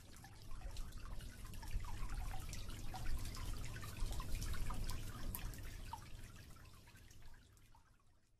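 Water trickling and dripping: many small plops over a low rumble, fading out about seven seconds in.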